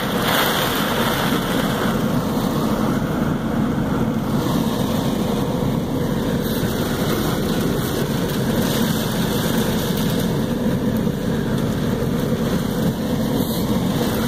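Heavy rain beating on a car's roof and windows in a windstorm, heard from inside the cabin as a loud, steady rush.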